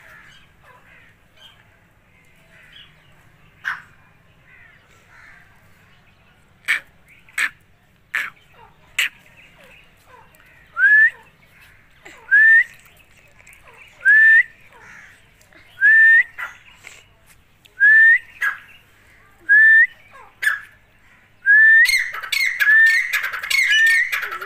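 Grey francolins calling. Faint high peeping and a few sharp clicks come first. About halfway through, a loud rising call note starts, repeated about every two seconds. Near the end it gives way to a denser, louder burst of calling.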